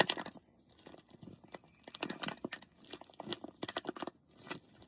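Plastic bag crinkling in short, irregular crackles as it is handled.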